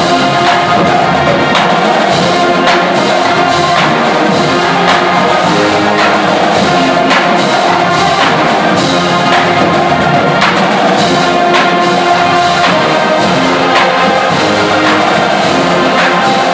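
Full marching band playing loudly: massed brass, with sousaphones on the bass line, holding notes over a drumline of snare, tenor and bass drums and cymbals, whose strokes repeat steadily throughout.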